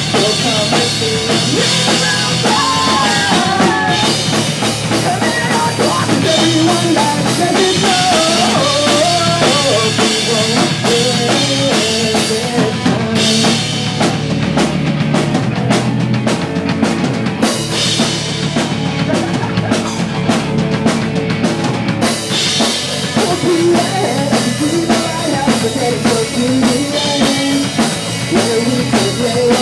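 Pop punk band playing live: drum kit with kick and snare driving the song, amplified band instruments, and a sung melody over the top. The cymbals drop back for a stretch in the middle before the full kit returns.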